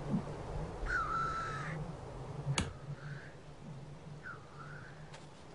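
A bird calling three times in harsh, caw-like calls. The first call is the longest and loudest, and a sharp click comes between the calls.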